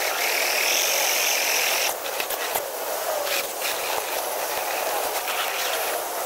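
Whine of a radio-controlled model's small electric motor and gears, steady for about two seconds, then fading into noisier sound with scattered clicks and knocks.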